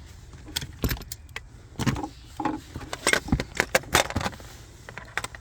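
Irregular metallic clicks and clinks of hand tools and bolt hardware being handled, several sharp ones close together near the middle.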